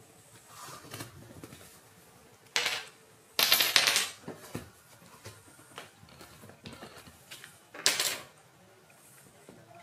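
Small wooden domino blocks being knocked over and clattering on a wooden floor as a cat walks through them, in a few short bursts of clicks. The longest clatter comes a little after three seconds and another near the end.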